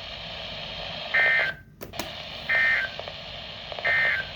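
NOAA Weather Radio SAME end-of-message data tones: three short, identical buzzy bursts about a second and a half apart over the receiver's steady hiss, signalling the end of the broadcast alert. The signal briefly drops out after the first burst, ending in a click.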